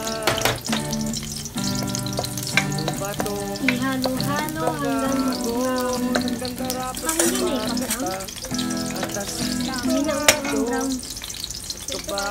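Chopped onion and garlic sizzling in hot oil in a stainless steel pan, stirred with a wooden spoon that clicks against the pan a few times. Background music with a melody plays over it.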